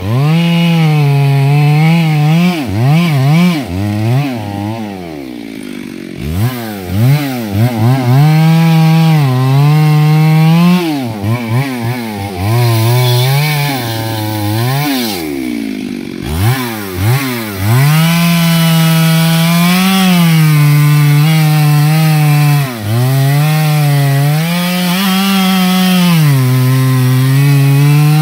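Two-stroke chainsaw felling a teak tree, running near full throttle as it cuts into the base of the trunk. The revs drop and climb again several times, around five and fifteen seconds in, and then hold high and steady in a long cut.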